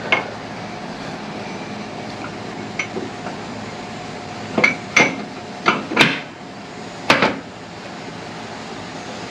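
Sharp metal-on-metal knocks and clinks, about six of them at uneven intervals, each ringing briefly, as tools and parts of a tractor's hydraulic lift cylinder are worked on; a steady hum runs beneath.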